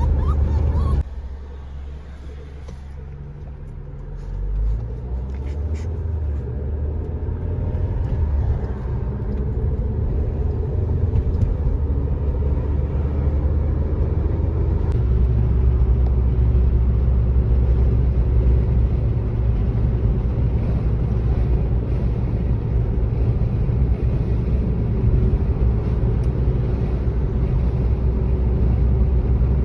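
Steady low rumble of a moving car heard from inside the cabin: engine and road noise while driving. It drops abruptly about a second in, then builds back up over the following few seconds.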